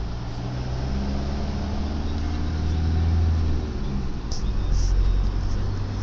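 Four-wheel-drive vehicle driving on beach sand, heard from inside the cab: a steady low engine drone with road noise.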